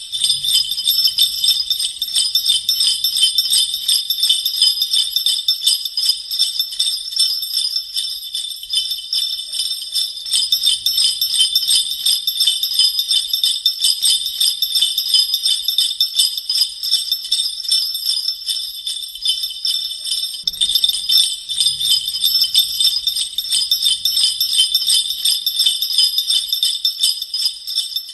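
Sleigh bells jingling steadily and rapidly, the continuous jingle of a reindeer sleigh on the move. The jingle freshens about two-thirds of the way through, with a few faint low thuds underneath.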